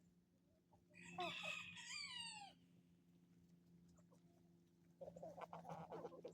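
A rooster crows once, about a second in: a call of about a second and a half that falls in pitch at the end. From about five seconds in, hens cluck in quick runs, with a faint steady hum underneath.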